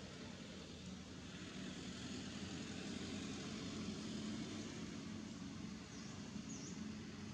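Faint steady low rumble, like a distant engine running, swelling slightly in the middle, with two brief high chirps around six seconds in.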